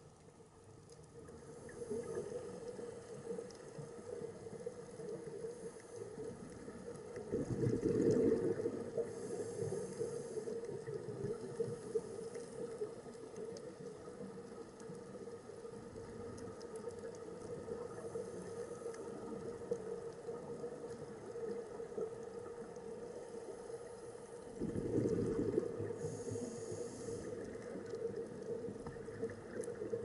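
Underwater sound picked up through a camera housing: a steady low hum, with two louder bubbling rushes about eight seconds in and again near twenty-five seconds, typical of a scuba diver's exhaled bubbles.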